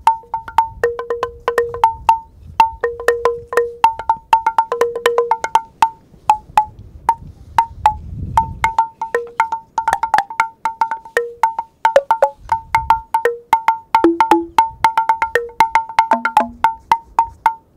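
Driftwood xylophone bars, resting on rolled-towel cross pieces, struck with driftwood sticks: a quick run of dry wooden knocks, several a second, each with a short pitched ring. A higher note repeats throughout, alternating with a lower one, and a few still lower bars sound near the end.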